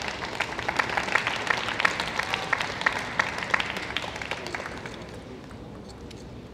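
Arena audience applauding a won point, a dense patter of hand claps that dies away about five seconds in.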